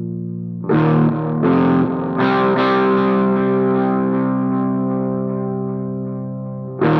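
Background music: distorted electric guitar chords, struck a few times and left to ring.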